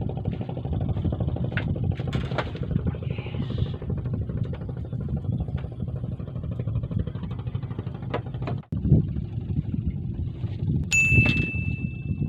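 A steady low motor drone, with a small bell giving one clear ding about eleven seconds in that rings on for a couple of seconds, typical of a fishing-rod bite bell.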